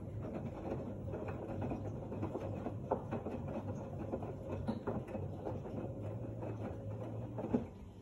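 LG F1289TD direct-drive front-loading washing machine running, its drum turning with a steady low motor hum and a constant patter of wet laundry and water tumbling inside. Near the end a knock, after which the sound falls away.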